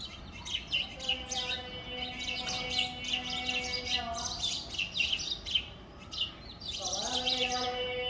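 A group of house sparrows chirping rapidly at the nest, many short chirps overlapping throughout. Behind them a steady hum drops out about four seconds in and glides back up to its pitch near seven seconds.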